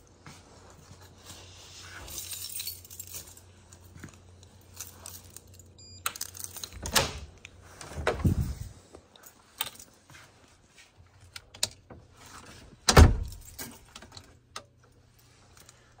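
A bunch of keys jangling amid scattered clicks and handling knocks, with one heavy thump, the loudest sound, about two-thirds of the way through.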